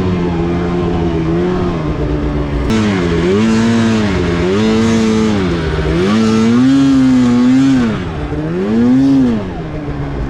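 Snowmobile engine revving hard, its pitch climbing and dropping again about five times as the throttle is worked on and off. A steady hiss joins in about three seconds in.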